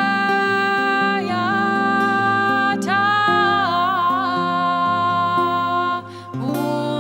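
Live song: a voice singing long held notes that slide and waver in pitch, over a steady instrumental accompaniment, with a brief pause about six seconds in.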